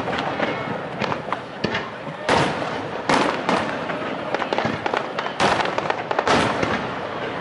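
Aerial fireworks shells bursting, with about five loud booms a second or so apart and a steady crackle of smaller bursts between them.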